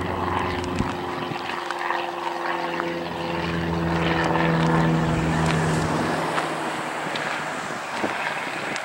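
Propeller aircraft engine passing, growing louder to a peak about halfway through and then fading.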